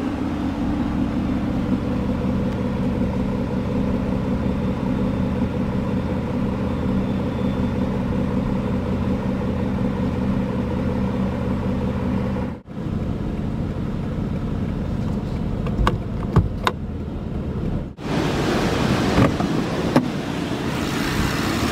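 The 6.0-litre V12 of an Aston Martin Vanquish idling steadily. The sound drops out briefly about twelve seconds in, and a few clicks and knocks come in the last few seconds.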